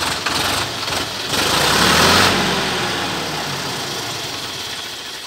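Sonalika tractor's diesel engine running, rising in a brief rev about a second and a half in that winds back down, then running on more quietly.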